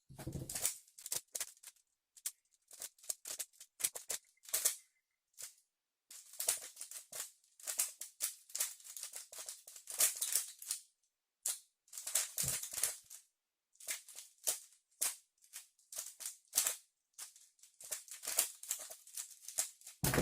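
A 3x3 speedcube being turned fast by hand: rapid plastic clicking and clacking of the layers in bursts, with a couple of brief pauses, during a timed solve.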